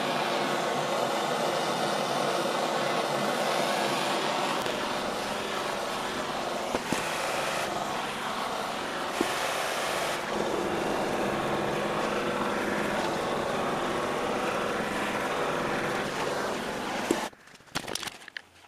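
Handheld propane torch burning with a steady rushing hiss, which stops suddenly near the end and is followed by a few brief knocks.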